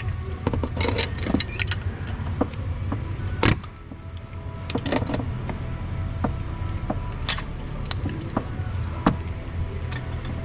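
Metal tools clinking and knocking as they are handled and fitted at the engine's fan clutch nut, with scattered clinks and one sharp knock about three and a half seconds in, over a steady low hum.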